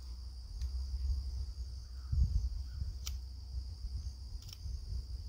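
Insects chirring steadily in the background, over a low rumble that swells briefly about two seconds in, with a few faint clicks.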